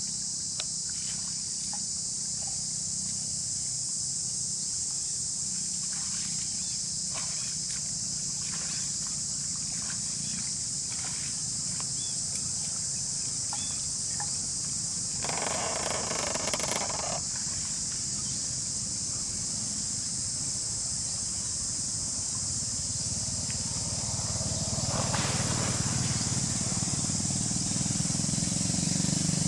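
Water buffalo grazing on wet grass, with short crisp clicks of grass being torn and chewed, over a steady high insect drone. A louder rushing sound of under two seconds comes about halfway through, and a weaker one near the end.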